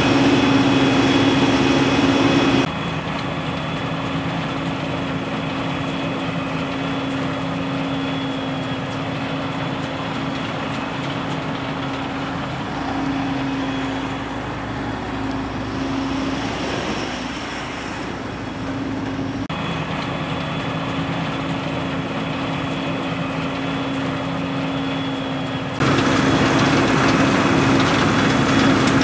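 Self-propelled forage harvester running steadily while cutting and chopping green forage, a continuous mechanical hum with a steady high whine. The level drops about two and a half seconds in and comes back up near the end.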